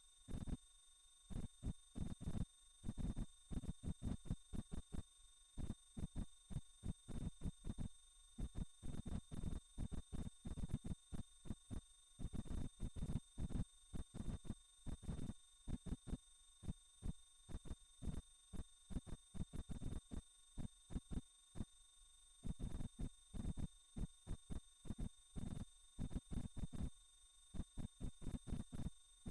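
A single very high-pitched steady sine tone used as a sound-healing frequency, pulsing evenly in loudness a few times a second.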